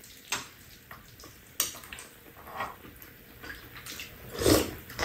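Spoons clinking and scraping against a frying pan and bowls while two people eat, with small eating sounds between the clicks and one louder mouth sound about four and a half seconds in.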